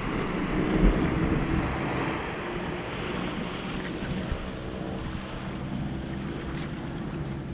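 Sea waves washing against the rocks of a breakwater, with wind buffeting the microphone. A faint steady low hum runs underneath.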